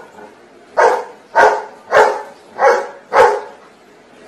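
Golden retriever giving five single barks about half a second apart: the last five of a count of seven barks answering "4 plus 3".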